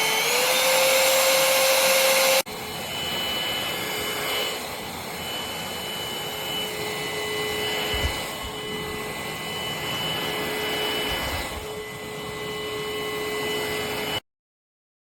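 SUXIANGVAC 350W cordless stick vacuum running with a steady whine and airflow rush; just after the start its pitch steps up as the motor speeds up. About two and a half seconds in, it changes abruptly to a quieter stretch of the vacuum running, which stops suddenly near the end.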